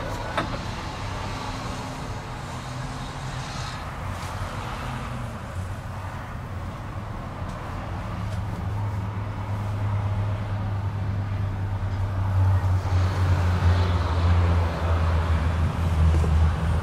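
Gazelle Next bus engine idling with a steady low hum, growing louder through the second half.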